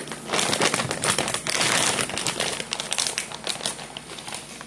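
A sealed snack bag crinkling as hands pull and squeeze at it, struggling to get it open; busiest in the first two seconds, then thinner.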